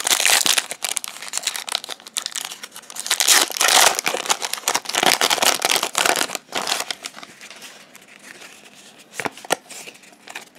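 Plastic wrapper of a trading-card booster pack being torn open and crinkled as the cards are pulled out. The crinkling is loudest in the first seven seconds, then gives way to quieter rustling as the cards are handled.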